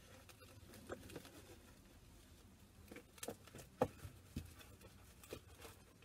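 Cling film crackling and crinkling as it is stretched tight around a plastic tub to make a drum skin: a faint scatter of small irregular crackles, the sharpest a little after the middle.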